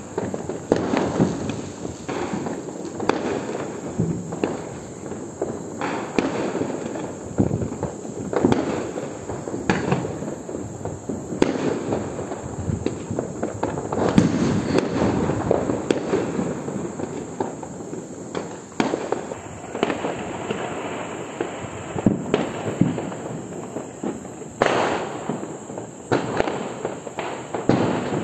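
Fireworks going off: sky rockets and firecrackers in a steady run of bangs and crackles, with the loudest stretch about halfway through and a sharp bang near the end.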